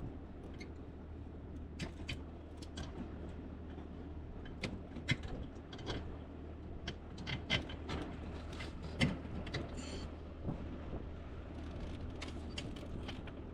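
Irregular clicks, knocks and light clunks of a steering column and its metal parts being handled and fitted into place under a car's dash, over a steady low hum.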